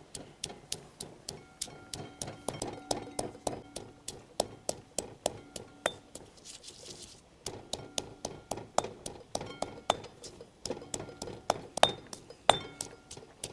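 A mortar and pestle being pounded: sharp, even knocks about four a second with a short ring after each, breaking off briefly about halfway through. The pestle is crushing chilies, garlic, lemongrass and salt to a coarse paste.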